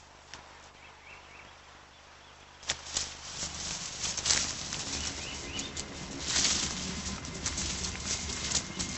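Leaves and branches rustling, with sharp crackles, as someone pushes through dense undergrowth. Faint at first, it turns louder and busier about three seconds in.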